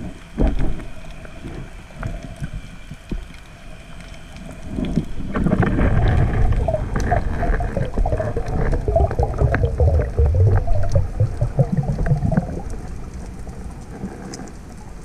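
Underwater noise picked up through a submerged camera: a rushing, rumbling water sound with scattered sharp clicks. It swells louder about five seconds in and eases off again near the end.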